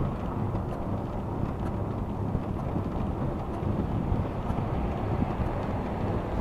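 Wind buffeting the dashcam microphone on a slowly moving vehicle: a steady low rumble with no let-up.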